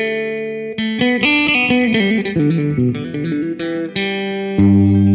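Music: guitar playing a run of quick single notes, with a low sustained bass note coming in near the end.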